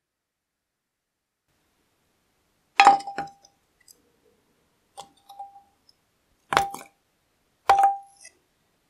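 Lumps of charcoal set into the open cast-iron body of an old charcoal iron with pliers, clinking against the metal. There are four separate clinks, each with a short ring, the first about three seconds in.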